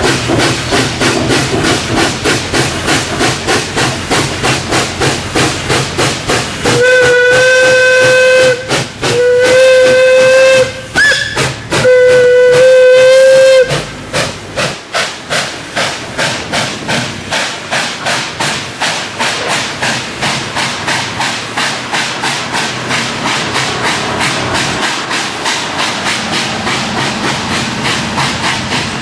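Two steam locomotives double-heading, one a 1924 H.K. Porter saddle tank, exhaust chuffing hard and in rhythm as they work the train, the beats quickening later on. A steam whistle sounds three long blasts about seven seconds in, with a short higher toot between the second and third.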